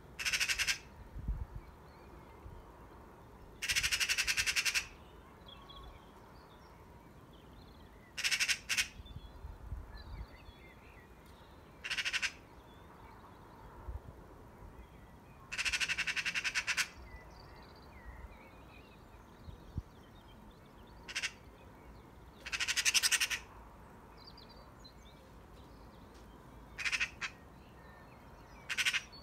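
Eurasian magpie giving its harsh rattling chatter, about nine bursts of rapid clacks, some lasting about a second, others short. This is the alarm chatter that magpies use when mobbing a cat.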